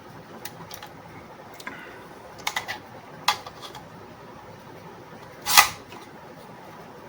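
Ethernet cable tester and its detachable remote unit handled by hand: scattered small clicks of plastic parts, with a louder knock about five and a half seconds in.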